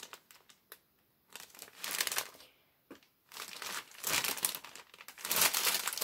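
Clear plastic bag crinkling as hands turn it over, with a package of spaghetti inside. It comes in irregular bursts with two short pauses in the first half, then runs on more densely and louder from about halfway.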